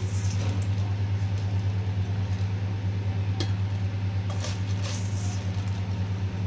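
Slotted steel spoon scraping and clinking against a steel mixing bowl while scooping puffed-rice bhel into a ceramic bowl, with a few sharp clinks and light rustling of the dry puffed rice. A steady low hum runs underneath throughout.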